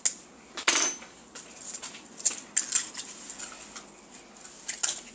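Sharp taps and clinks of eggs being cracked against a glass mixing bowl, with a fork knocking in the bowl: a handful of separate knocks spread over the seconds.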